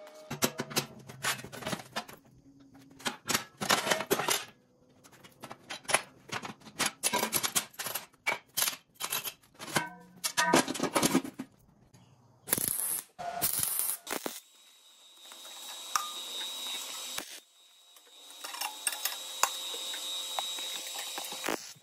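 Irregular metallic clicks and clanks of steel sheet being bent in inch-by-inch steps with a wrench and clamps on a steel welding table. About halfway through they give way to short bursts of hiss and then a steady hiss, with background music.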